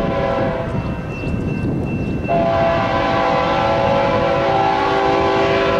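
Canadian National freight locomotive's multi-chime air horn blowing as the train approaches. It sounds faintly at first, then a strong, steady long blast from about two seconds in.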